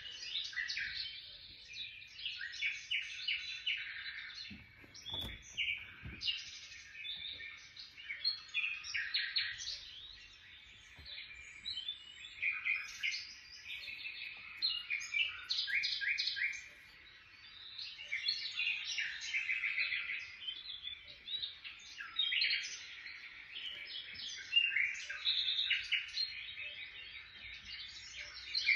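Small songbirds chirping and trilling without a break, in quick runs of repeated high notes.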